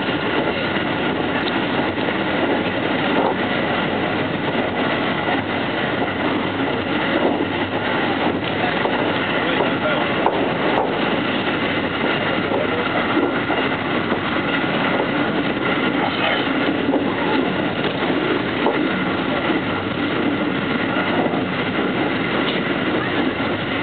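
Steady running noise of an electric train at speed, heard from inside its front car: wheels on rail and running gear, with a few faint steady whining tones.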